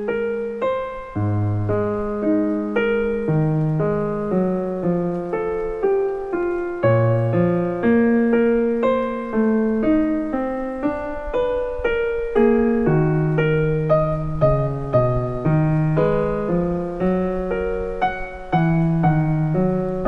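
Background music: a solo piano playing a slow melody, single notes and chords struck about once or twice a second, each ringing and fading.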